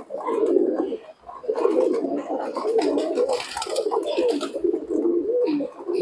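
A flock of domestic pigeons cooing together, many overlapping coos with no break. Scattered light pecking clicks and wing flutters come from birds crowding a feed tray.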